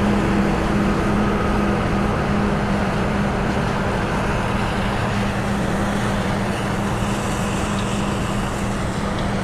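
Heavy farm machinery running steadily, with a constant engine drone and hum and a dense rushing noise.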